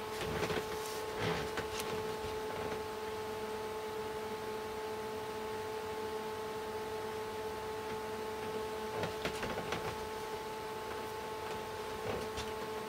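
Cooling fans running with a steady hum that holds several constant tones, with a few faint ticks here and there.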